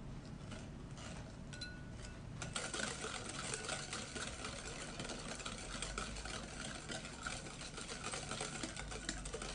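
Wire balloon whisk beating an egg into a thick batter in a glass bowl. A few slow scrapes, then from about two and a half seconds in a fast, steady clatter of wire against glass.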